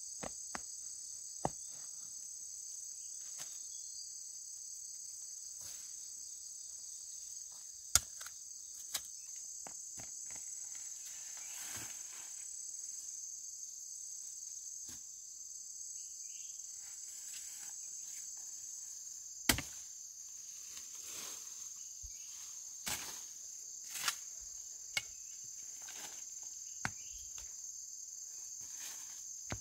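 Steady, high-pitched insect chorus, with scattered sharp knocks and clicks; the loudest two come about eight seconds in and again near twenty seconds.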